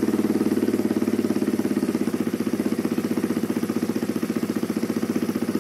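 Honda Megapro single-cylinder four-stroke engine, rebuilt and bored up to 215cc, idling with a steady, even pulse just after its first start. Its carburettor and idle are not yet set.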